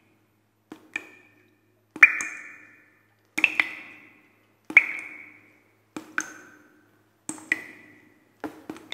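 A series of about seven sharp strikes, roughly one every second and a quarter, many of them a quick double hit, each ringing briefly before dying away.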